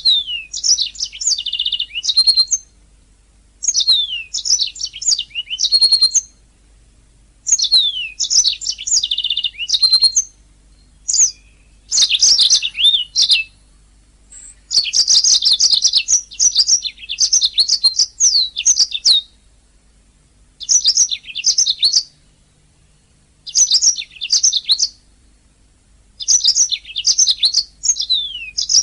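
Domestic canary singing: phrases of rapid trills and quick rising and falling whistled notes, each a few seconds long, broken by pauses of a second or two. The longest run of song comes just after the middle.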